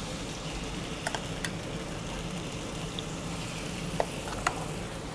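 Marinated mahi-mahi pieces sizzling steadily in hot olive oil in an aluminium frying pan, with a few sharp clicks of metal tongs against the pan.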